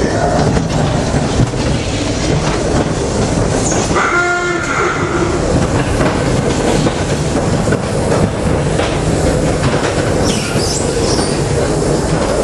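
Fairground ghost train car rumbling and rattling along its track, with a brief horn-like hooting tone about four seconds in.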